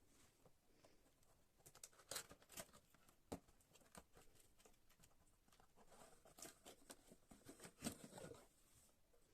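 Faint handling noises in a small room: scattered light clicks and rustling, with a few sharper small knocks, the loudest near the end.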